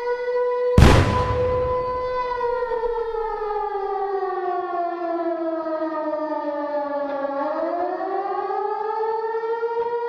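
Air-raid siren wailing: a steady tone that slowly sinks in pitch, then climbs back up. A single loud bomb blast under a second in is the loudest sound, dying away over about a second.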